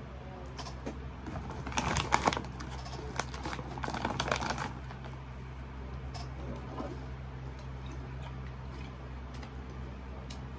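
Plastic snack bag of wafers crinkling and rustling as it is handled, in two spells about two and four seconds in, over a steady low hum.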